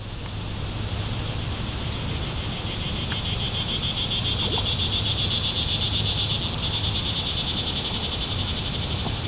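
Chorus of calling wildlife: many high, rapidly pulsing calls blending into one steady buzz, swelling about four seconds in, over a low steady hum.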